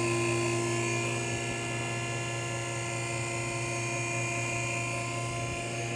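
A steady electrical hum made of several even tones over a low background noise.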